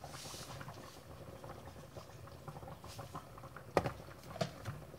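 Chicken afritada in tomato sauce simmering in a sauté pan: a steady run of small bubbling pops, with two louder pops a little before the end.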